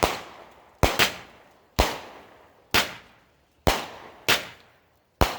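A 200-gram consumer firework cake firing: sharp bangs about one a second, seven in all, each with a fading tail.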